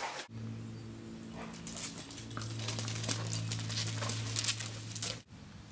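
A large black dog moving about on a paved driveway, with scattered light clicks over a steady low hum.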